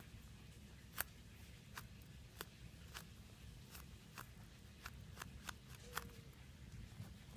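Faint scattered clicks and light taps from hands handling squishy toys, about a dozen at irregular intervals over a low hum.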